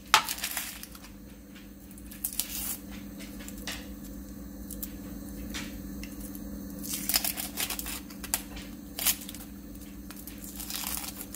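Dry onion skin crackling and tearing in short bursts as it is peeled off by hand, after a sharp knife cut through the onion onto a plastic chopping board right at the start. A steady low hum runs underneath.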